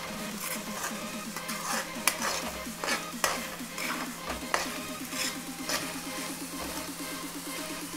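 Steel spoon stirring vegetables in a kadai, scraping and clicking irregularly against the pan, with the food sizzling underneath.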